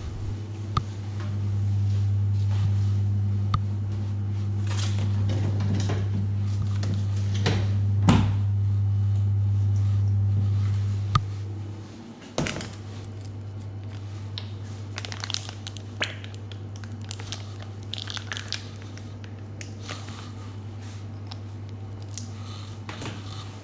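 Steady low hum, quieter from about halfway through, under scattered handling sounds of food preparation: a wet cloth wrung out, clicks and knocks from a stainless steel bowl, and a mayonnaise sachet squeezed near the end.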